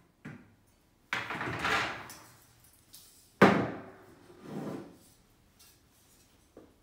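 Black metal wire-mesh document tray frame being handled on a wooden desk: a rasping scrape about a second in, then a sharp knock of metal against the wood, the loudest sound, at about three and a half seconds, a softer knock a second later, and a small click near the end.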